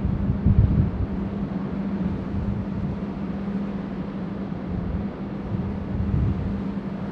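Wind buffeting the microphone in irregular gusts over the steady low hum of a large ship under way.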